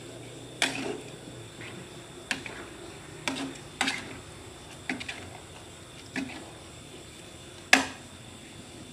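Cooking utensil knocking and scraping against a metal pan while noodles and shrimp are stirred: about eight irregular clinks, the loudest near the end.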